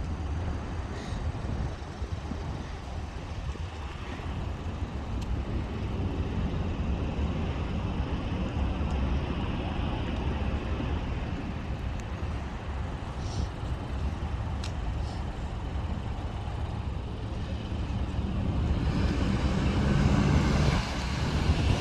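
Steady rumble of road traffic, growing louder near the end.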